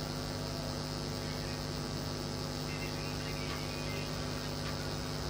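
Steady electrical hum with a faint hiss, unchanging throughout; the dough handling makes no clear sound over it.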